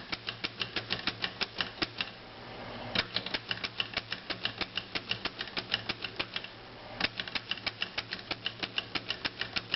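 Corona Four portable typewriter being typed on at a steady pace: quick clicks of the keys and typebars striking the platen, about six to seven a second, with two brief pauses about two and six and a half seconds in.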